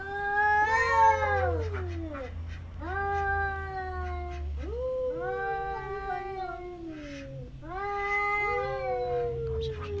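Two domestic cats yowling at each other in a standoff: about four long, wavering calls that rise and fall in pitch, the two voices overlapping at times.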